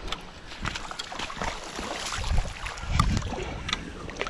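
Brown trout splashing and thrashing in shallow water at the bank as it is landed, a run of irregular splashes and knocks, loudest a little past two seconds in and again around three seconds.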